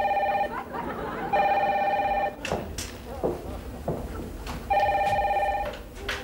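A telephone ringing in three bursts of about a second each: a two-tone warbling trill. The first burst ends just after the start, the second comes about a second and a half in, and the third comes near the end. A few short knocks fall between the rings.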